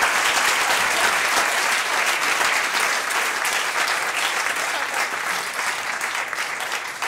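Audience applause, a dense clapping that slowly dies down toward the end.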